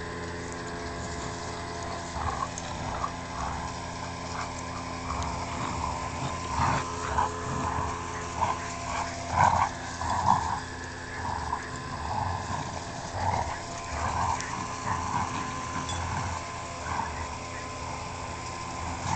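A Bouvier des Flandres puppy and a German Shepherd playing tug, with many short, irregular dog vocal sounds, loudest about halfway through, over a steady low hum.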